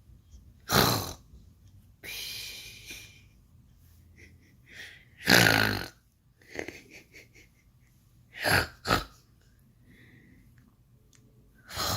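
A person snoring in loud, irregular snores, about six of them, each under a second long, with a longer rasping one about two seconds in.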